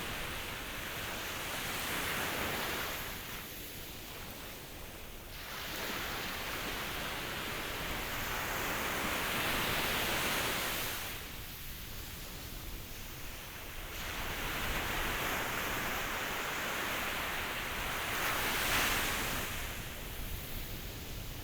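Ocean surf: waves breaking and washing in, the rushing hiss swelling and fading three times, about every eight seconds.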